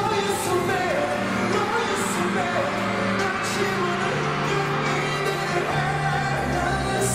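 Pop song performed live on stage: a singer's voice over backing music, steady throughout.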